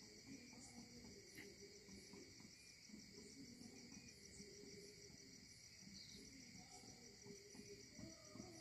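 Near silence, with a faint, steady, high-pitched chirring of insects such as crickets.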